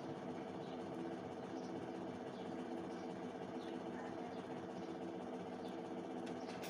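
A steady machine hum of several even tones, unchanging throughout, with faint light ticks of a pen writing on paper.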